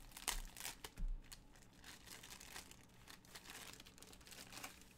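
Crinkly plastic packaging from a diamond-painting kit being handled. It makes an irregular run of rustles and crackles, busiest in the first second or so and then sparser.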